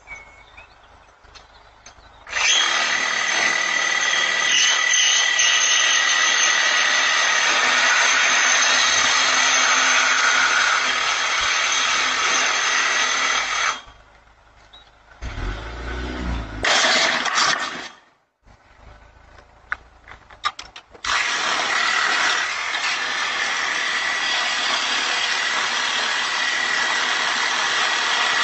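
Handheld power tool cutting through a metal camera pole: a loud, steady, high-pitched grinding whine runs for about eleven seconds, stops, and starts again about seven seconds later.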